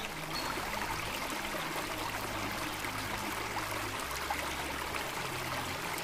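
Running water, a steady rushing and trickling like a stream or waterfall.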